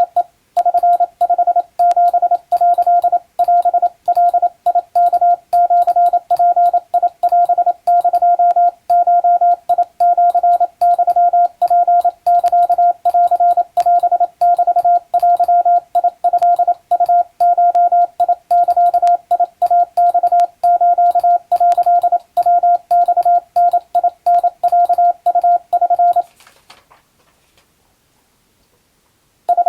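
Wabun (Japanese) Morse code sent as a single-pitch beeping tone, short and long elements in quick succession. It stops about 26 seconds in, leaving a pause of about three seconds before the code resumes at the very end.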